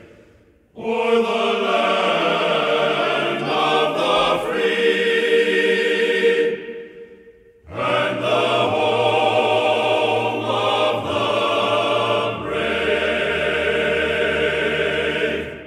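Choral music: a choir singing two long phrases of held chords with a short break between them, the second fading out at the end.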